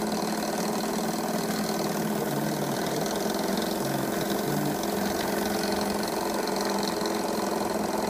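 G.F. Mars high-speed model steam engine running fast and steadily, on steam at about 25 PSI from a Pendle boiler; an engine rated to about 4,000 rpm.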